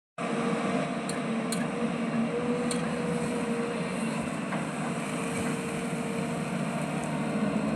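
Diesel engine of a construction machine (backhoe loader or excavator) running steadily, with a few light clicks in the first three seconds.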